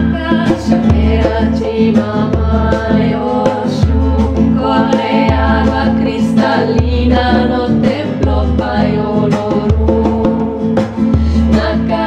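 Background music with singing voices over a bass line that steps to a new note about once a second.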